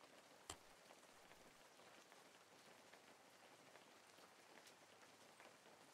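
Near silence: a faint steady hiss, with a single soft click about half a second in.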